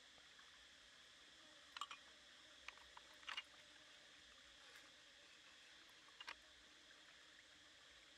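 Near silence with a few faint, short clicks and taps of snail shells being handled and dropped into a woven basket, about four times.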